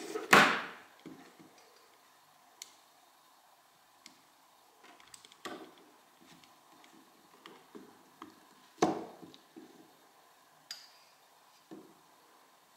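A Sonim XP3.20 Quest Pro and a Nomu T10 rugged phone being handled and knocked against a wooden tabletop, with small clicks and rubbing from fingers on their hard cases. The loudest knock comes about half a second in, and two more come around five and a half and nine seconds in.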